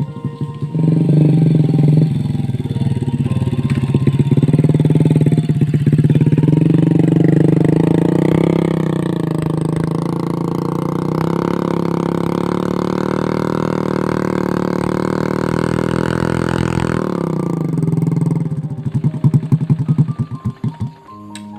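Motorcycle engine running hard, its pitch rising and holding from about eight seconds in, then dropping away about seventeen seconds in; a run of quick uneven pulses follows near the end.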